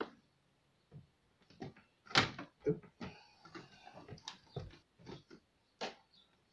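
Knocks and clatter of a plastic window slider panel being set into a wooden window frame and sill, in a string of separate hits, the loudest about two seconds in.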